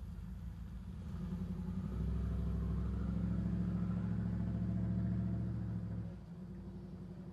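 A motor vehicle engine idling with a steady pulse, its note swelling louder about a second in and holding for some four seconds with a slight rise in pitch, then dropping back abruptly to idle.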